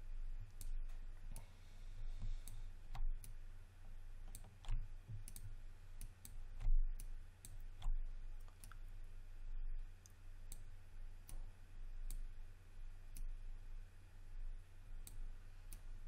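Scattered, irregular clicks of a computer mouse and keyboard keys over a steady low hum.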